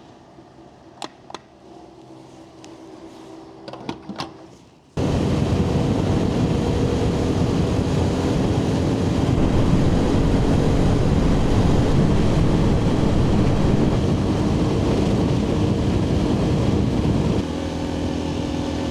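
For the first five seconds, a quieter stretch with a few sharp clicks; then, suddenly, the steady loud running of a motorcycle engine under way, mixed with road and wind noise, easing slightly near the end.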